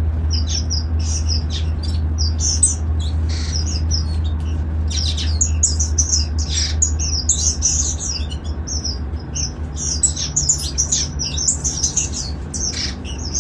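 A colony of aviary finches chirping and calling over one another in quick, overlapping high notes, over a steady low hum.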